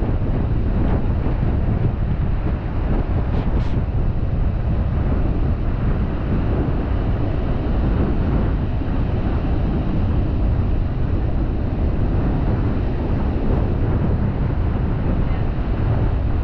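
Wind buffeting the microphone, a loud steady low rumble, with ocean surf breaking beneath it.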